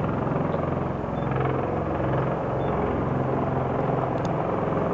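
Aircraft running steadily, with a fast, even pulsing beat over a low drone.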